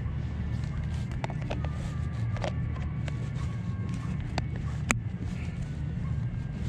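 Hands handling a plastic bait package: scattered small clicks and rustles, with one sharp click about five seconds in, over a steady low rumble.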